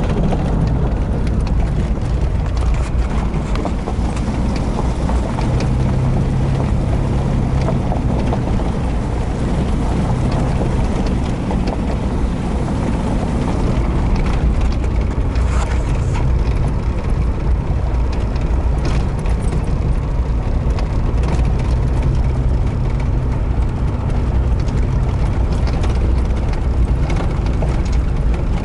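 A vehicle driving along a gravel road, heard from inside the cab: a steady low engine and tyre rumble with a low engine hum that rises and falls, and scattered light ticks.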